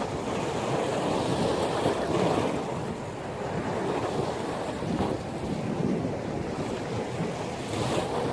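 Sea waves breaking and washing in a strong wind, with the wind rumbling on the microphone: a continuous rushing noise.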